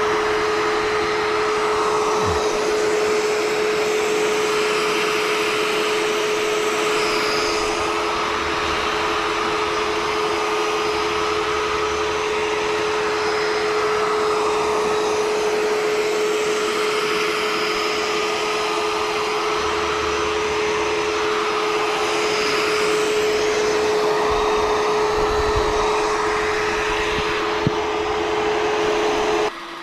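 Ecovacs Deebot T20e robot vacuum running, a steady motor whine over a broad rushing noise, stopping abruptly just before the end.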